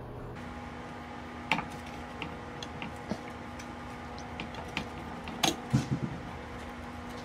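Battery cable push-on connectors being worked off the terminals of a UPS's sealed lead-acid battery by gloved hands: a scatter of small clicks and knocks of metal and plastic, the loudest few about five and a half to six seconds in.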